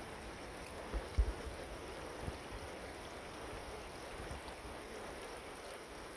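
Shallow river rushing steadily over rocks, with a few dull low thumps about a second in and again near two seconds.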